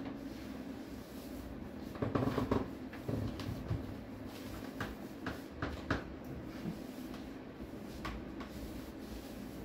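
Handling noise of a person shifting on an old trunk and moving her legs onto its lid: a cluster of knocks and rustling about two seconds in, then a few short sharp clicks and creaks later on.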